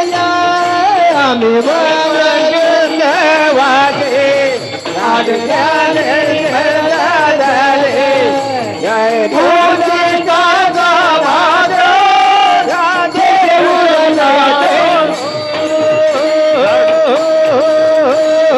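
Devotional Marathi abhang music: a wordless melodic passage with rhythmic accompaniment between sung lines, the melody bending and wavering, then settling on a held note pulsed at a steady beat near the end.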